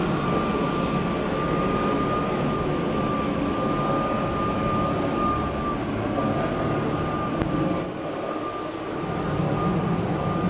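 Windsor Karcher Lightning battery burnisher running, its 3M burnishing pad spinning at high speed on vinyl composition tile: a steady high whine over a rushing noise, dipping slightly for a moment about eight seconds in.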